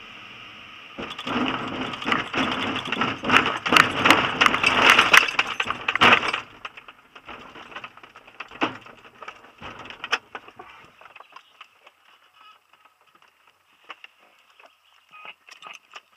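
Schleicher ASK 23b glider touching down on a grass strip about a second in: a loud, rattling rumble of the wheel and airframe rolling over the rough grass, which dies away about six seconds in. Scattered knocks and clicks follow as the glider slows to a stop, with a steady wind hiss before touchdown.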